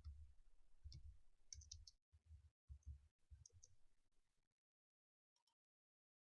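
Near silence with faint computer mouse clicks, several in quick pairs like double-clicks, over a low room hum that cuts off about four and a half seconds in.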